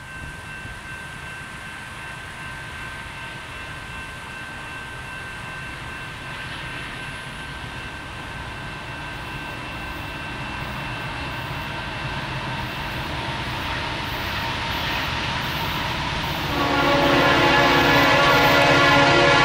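Approaching diesel freight train: a low locomotive rumble grows steadily louder. About three-quarters of the way through, the lead locomotive's air horn starts blowing a loud, steady multi-note chord.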